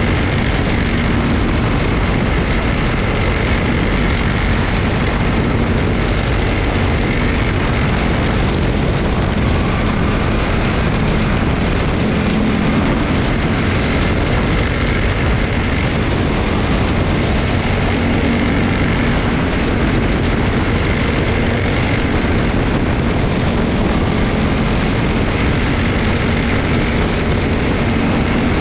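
Small Honda race-car engines running steadily as the cars lap a track, their drone holding at one level with slight rises and falls in pitch.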